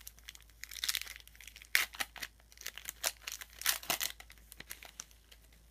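Trading cards being flipped through by hand, the cards sliding and snapping against one another in a run of quick, irregular scrapes and clicks.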